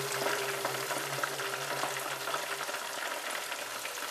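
Hot cooking oil sizzling and crackling steadily as chicken fries, with a low steady hum that stops about two-thirds of the way through.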